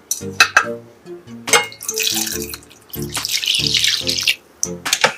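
Water running for about two seconds in the middle, with a few light clinks before it, over background music with a repeating plucked melody.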